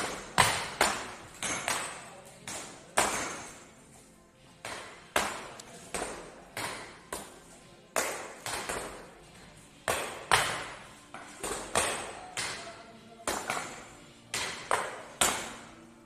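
Rocks being worked by hand, knocking and clinking against each other and against metal tools in irregular sharp strikes about one or two a second, each with a short ring.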